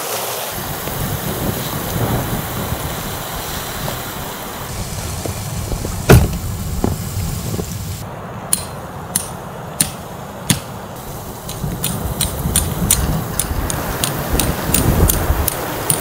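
Wind rushing over the microphone, a single loud knock about six seconds in, then a run of sharp, short taps or clicks that come faster and faster as the tent is secured at its base.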